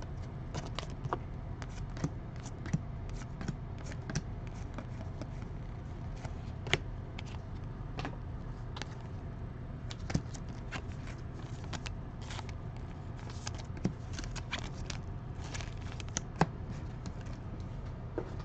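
Trading cards being handled and flipped through: irregular light clicks, snaps and scrapes of card stock, over a steady low hum.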